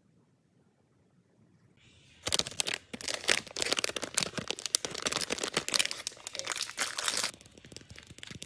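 Plastic wrapper of a fish-shaped wafer ice cream crinkling and crackling as it is handled and torn open. It starts about two seconds in and runs for about five seconds as a dense, loud crackle.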